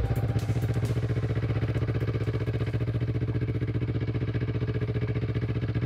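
A vehicle engine idling steadily with a fast, even pulse.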